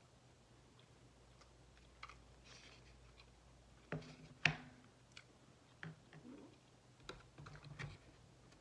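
Quiet eating sounds: chewing and small clicks and taps of a plastic fork against a paper food bowl, with a few louder clicks about four seconds in. Near the end, light handling of a cardboard food box.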